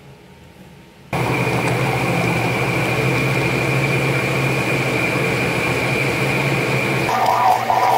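Countertop blender switched on about a second in, its motor running steadily at high speed with a constant whine while it blends a milky liquid. Around seven seconds in the tone of the motor changes and it keeps running.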